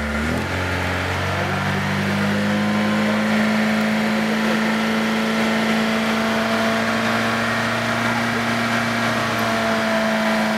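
Car audio system with its doors open playing a loud, steady bass tone at SPL-competition level. The tone glides up in pitch in the first half second, then holds steady.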